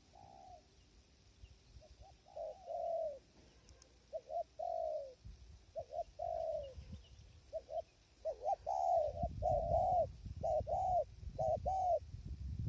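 Spotted dove cooing: repeated phrases of short arched coos, coming faster and louder in the second half. Wind buffets the microphone with a low rumble from about halfway in.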